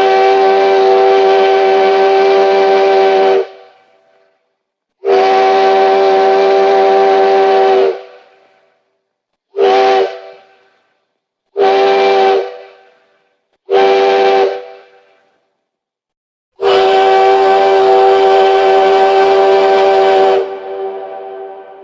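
Steam train whistle blowing six blasts at a steady pitch, sounding several tones at once: two long blasts, three short ones, then a final long one. Each blast dies away slowly after it stops.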